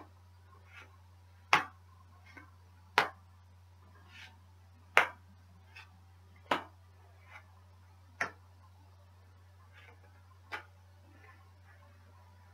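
Tarot cards being dealt one at a time onto a hard, glossy table top: six sharp taps as cards land, about every one and a half to two seconds, with fainter taps and rustles of handling between. A steady low hum runs underneath.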